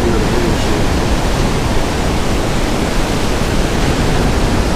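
Ocean surf breaking and washing in shallow water close by: a steady, loud rush of noise with a heavy low rumble, likely mixed with wind on the microphone.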